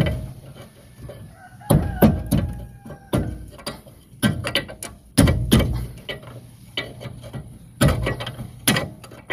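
Steel pry tool levering against a rusty disc-brake caliper and rotor on a Suzuki F6A multicab: a dozen or so irregular metal knocks and scrapes as the stuck caliper is worked loose. The pads are worn very thin, so the piston stands far out and the caliper binds.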